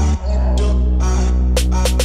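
Background electronic music with sustained heavy bass notes, a brief break just after the start, and a run of quick drum hits near the end.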